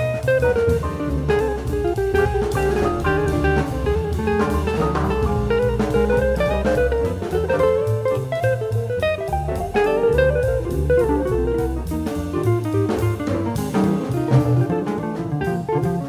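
Small-group jazz: an electric jazz guitar, a 1965 Gibson ES-175 played through an amp with a little reverb, carries a single-note line over a walking bass and a drum kit keeping time on the cymbals.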